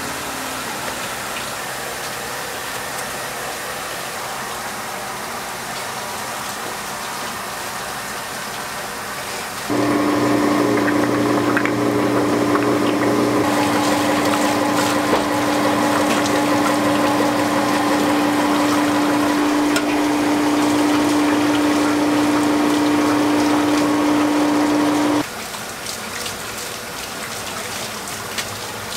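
An electric machine motor switches on about ten seconds in, runs with a steady hum for about fifteen seconds, then cuts off suddenly. A steady hiss of background noise runs under it throughout.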